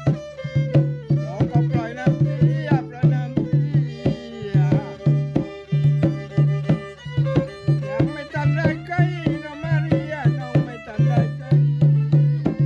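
Rong ngeng folk music: a violin playing an ornamented melody over a steady, repeating hand-drum beat.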